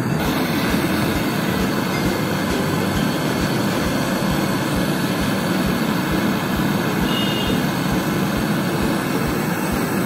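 Portable gas-canister torch flame burning with a steady rushing noise as it heats a copper pipe joint on a refrigerator compressor for brazing.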